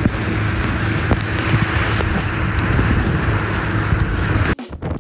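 Speedboat's outboard motor running at speed, a steady low drone under wind buffeting the microphone and the rush of water from the wake. It cuts off abruptly near the end.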